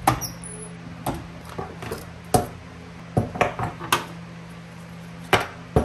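Tools and parts being set down and handled on a wooden workbench: a series of sharp knocks and clicks, about eight spread over several seconds.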